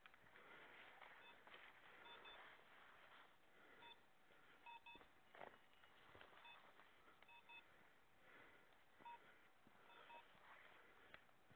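Faint electronic double beeps from a hunting dog's beeper collar, repeating every second or two while the setter ranges, over the rustle of scrub brushing past.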